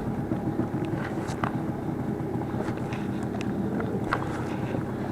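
Boat motor running steadily, with a few faint clicks and knocks over it.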